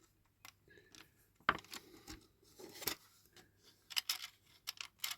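Scattered small clicks and taps of a 1/18 scale diecast model car being taken apart by hand, a part being worked loose from its springs. The sharpest clicks come about one and a half and three seconds in, with a quick cluster around four seconds.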